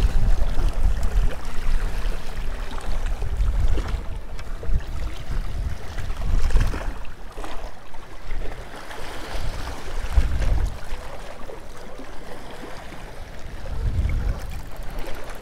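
Wind rumbling in gusts on the microphone over small waves washing against shoreline rocks.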